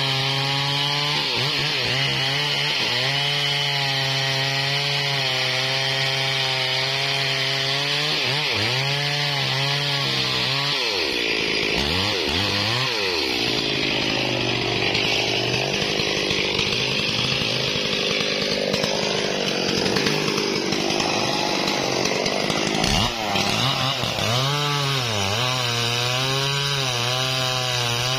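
Stihl MS440 two-stroke chainsaw cutting through a durian log, its engine pitch dipping and recovering again and again as the chain loads up in the wood. Midway the note turns steadier and rougher while the bar is deep in the cut, with a brief knock near the end.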